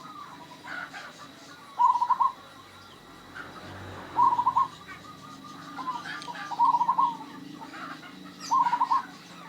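Zebra dove (perkutut) cooing: four short phrases of rapid staccato coos, each about half a second long, roughly two seconds apart.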